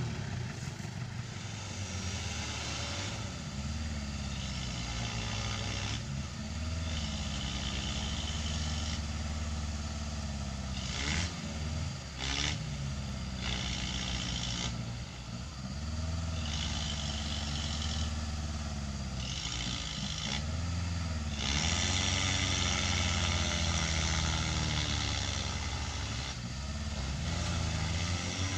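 Mitsubishi L300 pickup's diesel engine revved hard again and again, its pitch rising and falling, as it is forced at full load to climb a muddy slope with a cassava load.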